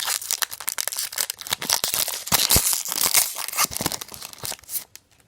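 Plastic wrapper of a basketball card pack being torn open and crumpled: a dense, crackling rustle that stops near the end.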